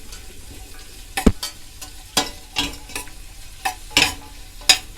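Sliced red onions frying in hot ghee with a steady sizzle, stirred in the pan, the utensil scraping and knocking against the pan about once a second.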